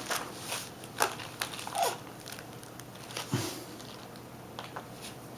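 Scattered light clicks and faint rustling from a laptop being handled and opened up.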